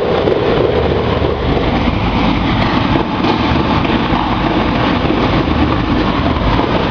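Peanut roaster machine running: a loud, steady mechanical noise that holds without a break.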